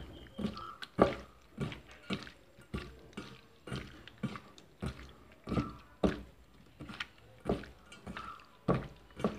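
A hand squeezing and mixing raw chicken pieces coated in soy sauce, pepper and salt in a stainless steel bowl: a steady run of wet squelches, about two a second.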